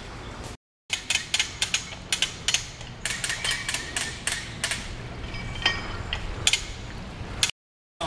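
Ratchet on a tree-mounted rope-lowering winch clicking in quick uneven runs as rigging rope is taken up, starting about a second in.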